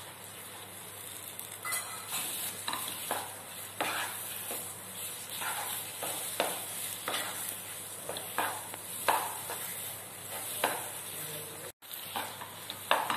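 Wooden spatula stirring and scraping thick semolina kesari around a nonstick frying pan in repeated strokes about every half second or so, over a faint steady sizzle from the ghee in the pan.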